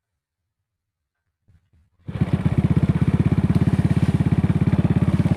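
A small engine starts running about two seconds in and keeps going with a steady, rapid putter of firing pulses.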